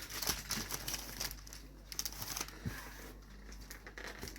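Wrapping paper rustling and crinkling as a gift package is handled, in irregular crackles that are busiest in the first two seconds.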